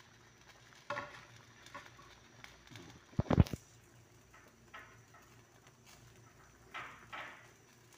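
A metal spatula pushing alugbati leaves down into a pot of boiling fish broth, making several soft brushing strokes in the second half. One loud thump about three seconds in is the loudest sound.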